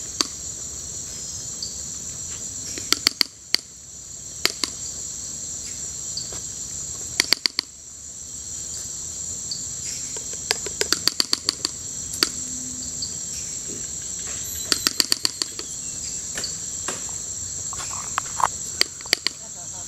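Steady high-pitched drone of tropical insects calling. Every few seconds it is cut across by short runs of sharp, rapid clicks, which are louder than the drone.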